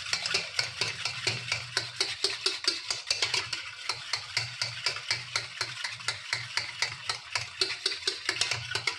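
Wire whisk beating curd in a stainless steel pot, a rapid, even run of scraping strokes of the wires against the metal, whisking the curd smooth.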